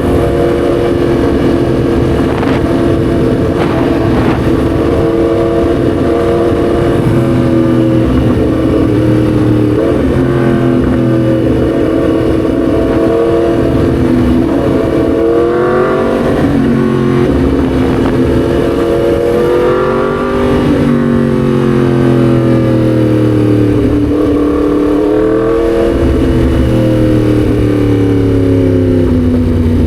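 Yamaha MT-10 SP's crossplane inline-four engine running under way, its note steady at first, then rising and falling several times with throttle and gear changes, and dropping away near the end.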